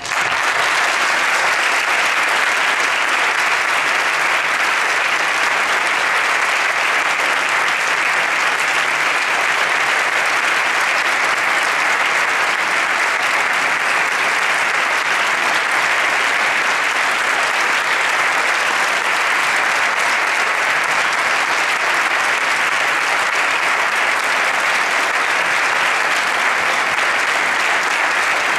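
Audience applauding, a dense steady clapping that starts abruptly and holds at an even level without dying down.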